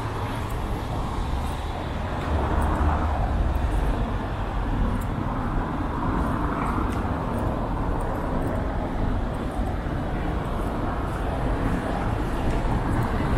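City street traffic: cars driving past on a cobblestone road, a steady rumble of engines and tyres that swells as cars go by, about two seconds in and again around six seconds.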